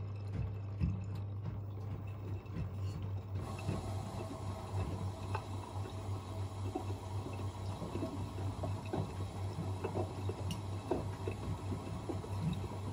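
Washing machines taking in water early in an easy-care wash: water rushing and splashing into the drums over a steady low hum. About three seconds in, the hiss of the inflowing water gets louder and brighter.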